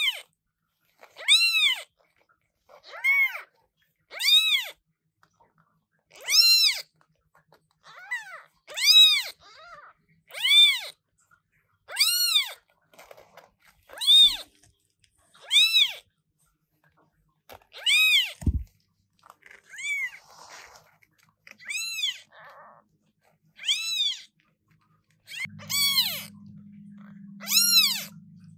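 Newborn British Shorthair kitten meowing loudly and repeatedly, about one high cry every second and a half, each rising and then falling in pitch. A brief low thump comes about two-thirds of the way through, and a low hum runs under the last few cries.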